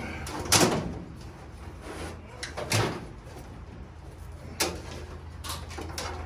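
Knocks and clunks from a wiring harness being handled and fed into a truck's cab or engine bay: three sharp knocks a couple of seconds apart, then a few lighter taps, over a steady low hum.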